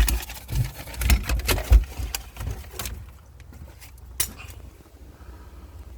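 A run of knocks, thumps and low rumbling handling noise for about three seconds, then quieter, with a single sharp click about four seconds in.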